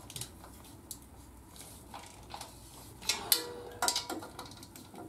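Hand ratchet on an exhaust clamp bolt, clicking in short runs with light metal clinks of tool on steel, the clicks bunched in the second half.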